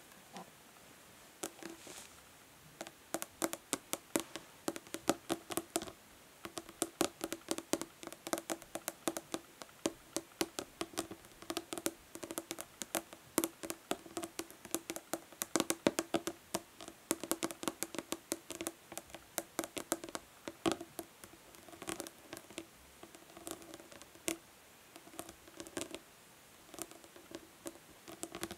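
Natural fingernails tapping fast and irregularly on a plastic body lotion bottle, sharp clicks over a hollow ring from the bottle, with brief lulls between flurries.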